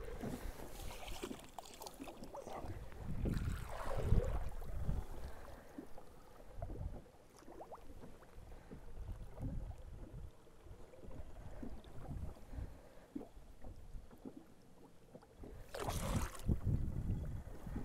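Wind buffeting the microphone over water swishing and swirling beside the boat as a musky lure is swept through a figure-eight, with two louder rushes, about three seconds in and near the end.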